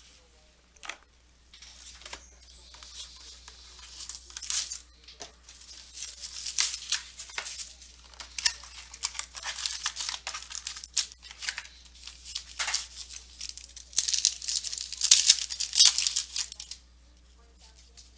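A foil trading-card pack wrapper being torn open and crinkled by hand, in irregular rustling bursts that are loudest near the end.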